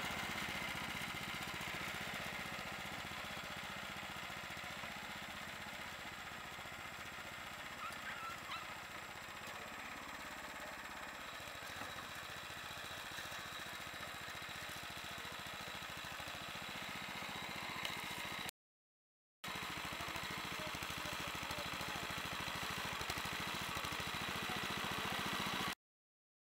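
Walk-behind tractor engine running steadily under load as it pushes a homemade bulldozer blade. The sound cuts out to silence briefly twice.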